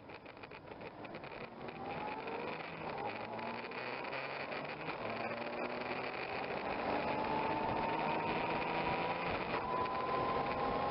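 Honda Gold Wing motorcycle engine accelerating, its pitch rising in several steps as it shifts up through the gears, with wind noise on the microphone building and getting louder as speed picks up.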